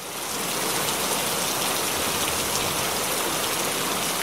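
Heavy rain pouring down, a steady dense hiss that fades in over the first half second.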